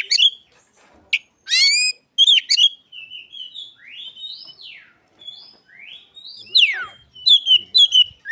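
Oriental magpie-robin (kacer) singing, mimicking Asian pied starling (jalak suren) calls: a run of loud whistled phrases with rising and falling glides and sharp chirps, softer glides in the middle and loud again near the end.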